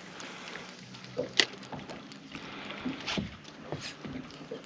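Water lapping against a small fishing boat's hull, with a few sharp clicks on board, the loudest about a second and a half in.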